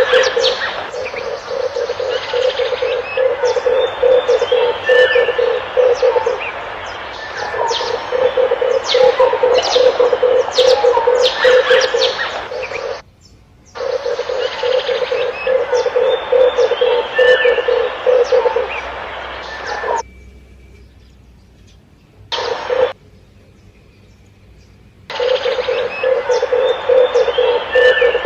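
Red turtle doves cooing, a low pulsing coo repeated in long runs, with other small birds chirping over it. The sound cuts out for about a second midway and for several seconds near the end, apart from one short burst.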